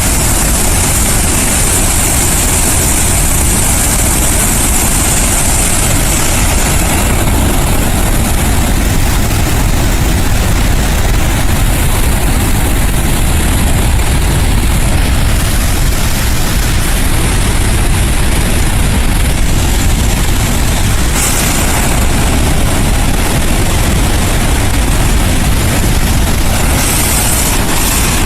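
Water rushing out of a large earth-fill dam's outlets in a flood release: a loud, steady rush with a deep rumble underneath.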